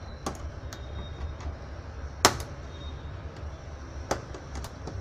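Sharp plastic clicks and snaps as the small retaining locks along the top edge of a Lenovo G500 laptop keyboard are pried loose, about six of them, with one loud snap about two seconds in, over a steady low background hum.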